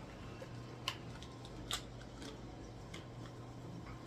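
A few sharp clicks and taps from handling a supplement bottle and capsules, the two loudest about one and nearly two seconds in, over the steady low hum of a running dishwasher.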